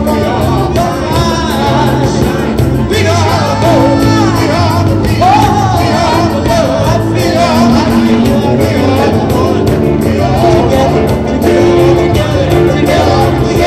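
Live concert music: singing over a band with a steady beat and held bass notes.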